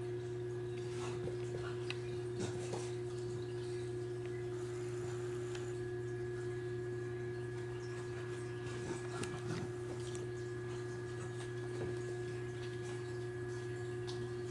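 Soft scattered taps and scuffles of a cat and a cocker spaniel play-wrestling on a rug, over a steady hum with one constant tone. The taps come in small clusters in the first few seconds, around nine to ten seconds in, and once near twelve seconds.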